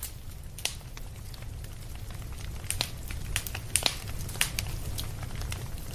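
Wood campfire crackling, with sharp irregular pops over a low steady rumble.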